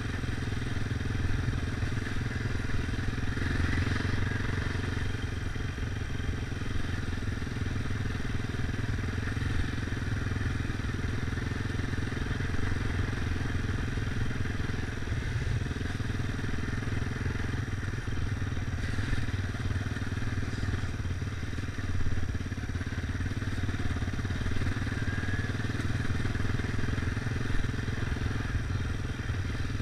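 Off-road motorcycle engine running steadily at a cruising pace, heard from a camera riding along on a following bike on a dirt track.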